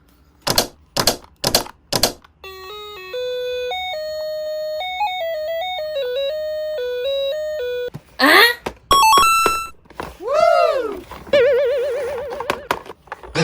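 Four quick knocks, then a short electronic melody, followed by cartoon-style sound effects: a chime, a few dings, a tone that swoops up and down, and a warbling tone near the end.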